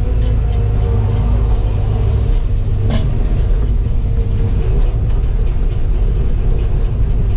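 Heavy-equipment diesel engine running steadily with a deep rumble, with scattered light ticks and one sharp click about three seconds in.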